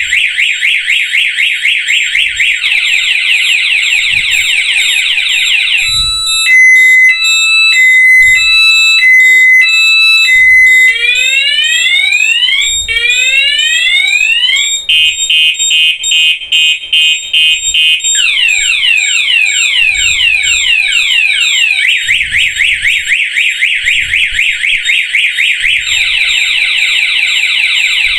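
Motorcycle anti-theft alarm horn sounding, set off by switching the ignition on while the hidden alarm switch is off; very loud, it cycles through its tones: rapid chirping, alternating two-tone beeps about six seconds in, rising sweeps, a fast warble, falling chirps, then rapid chirping again.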